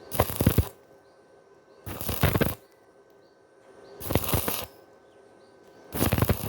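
Electric welding arc struck in short bursts on thin iron: four crackling welds of about half a second each, spaced about two seconds apart, with a quiet hum between them.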